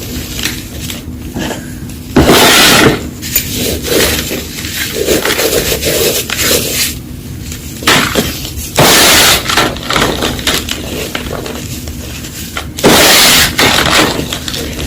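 Blocks of Reform gym chalk being crunched and crumbled: three loud crunches, about two seconds in, around nine seconds and near thirteen seconds, with softer crackling in between.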